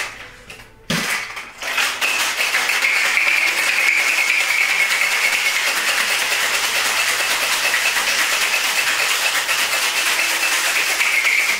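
Ice rattling hard inside a metal cocktail shaker during a vigorous shake, a fast continuous clatter. A single knock about a second in comes just before the rattling begins.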